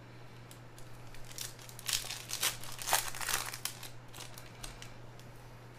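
Foil trading-card pack wrapper crinkling as it is torn open and peeled off the cards, a quick flurry of crackles lasting about two seconds, over a steady low electrical hum.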